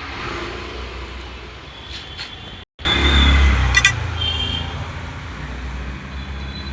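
Background motor-vehicle noise with a steady low rumble. The sound cuts out briefly just under three seconds in, then comes back louder, with a few light clicks about a second later.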